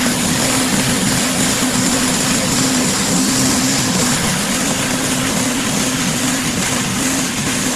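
Pressure washer running steadily: an engine drone under the constant hiss of high-pressure water spraying onto concrete.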